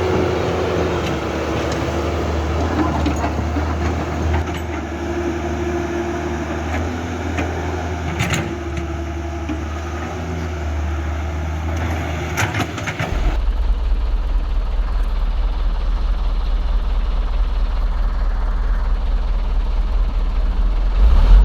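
Radio-controlled construction models (excavator, bulldozer, truck) running with a steady engine-like hum and a couple of sharp clicks. About two-thirds of the way through it switches abruptly to a deeper, steadier hum.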